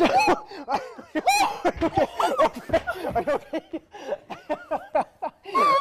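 Several people laughing hard in fits and bursts, with high-pitched squeals in the first second and a half.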